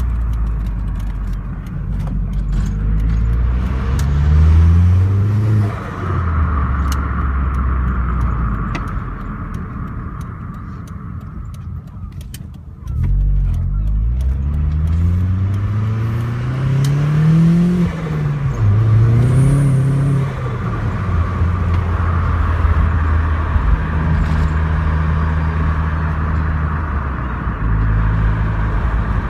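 Vauxhall Zafira GSi heard from inside the cabin, accelerating through the gears: the engine note rises and drops at each change up, eases off briefly, pulls up again twice, then settles into steady running. Faint ticking and rattling sits over it, mostly in the first half: the rattle the owner is chasing.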